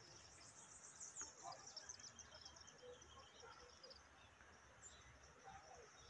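Faint outdoor ambience: a high, rapidly pulsing insect chirring, clearest in the first two seconds or so, with a few faint bird chirps.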